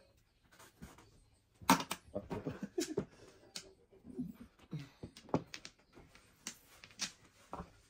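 Mahjong tiles clicking and clacking as they are drawn, set down and knocked against each other on the table: a scatter of sharp, irregular clicks, the loudest about two seconds in. A few brief low vocal sounds come in between.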